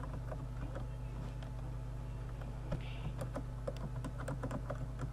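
Computer keyboard being typed on: quick, irregular key clicks as a password is entered, over a steady low hum.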